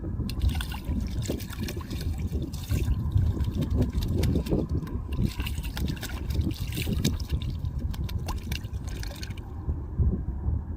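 Goshawk bathing in shallow water, splashing in a quick run of small splashes that stops about nine seconds in, over wind rumbling on the microphone.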